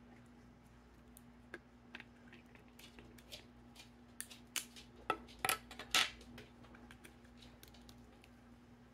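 Light clicks and taps of a small plastic slime tub being handled and opened, scattered at first and busiest from about four to six seconds in.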